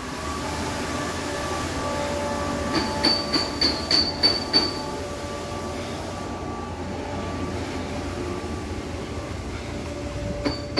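Steady hum of factory machinery with several held whining tones, and a quick run of about seven sharp metallic clinks about three to four and a half seconds in.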